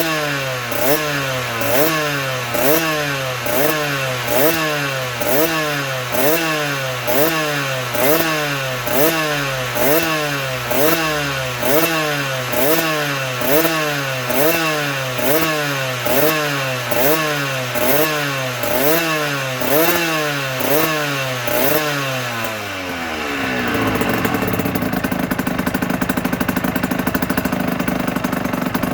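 2008 Aprilia RS125's single-cylinder two-stroke engine revved over and over, rising and dropping about once a second. Near the end it settles into a steady idle.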